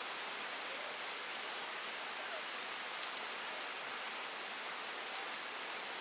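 Steady hiss of falling rain, with a few sharp crackles from a wood fire burning on the fire pit.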